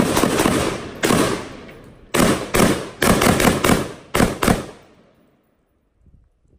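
Handgun fired about nine times in an uneven string, the shots spaced from about a third of a second to a second apart, each ringing out briefly. The firing stops about four and a half seconds in.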